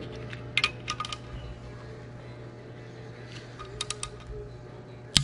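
Short clusters of sharp metallic clicks from a torque wrench and socket on the Detroit Diesel Series 60 head bolts as the bolts are tightened to torque. The clicks come about a second in, again near four seconds, and once louder at the very end, over a steady low hum.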